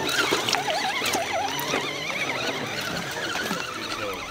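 Electric motor and geared drivetrain of a 1/10-scale RC 4x4 trail truck whining, the pitch rising and falling with the throttle as it climbs out of a muddy pit, with scattered clicks and knocks.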